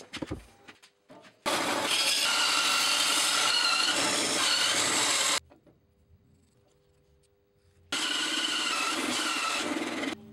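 Bandsaw blade cutting through a block of wood, in two cuts of a few seconds each: the first starts about a second and a half in, the second near the end. Between the cuts the saw runs with a faint steady hum.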